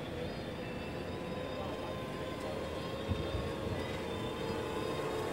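Quadcopter drone hovering, its motors and propellers giving a steady hum of several tones over a low rumble.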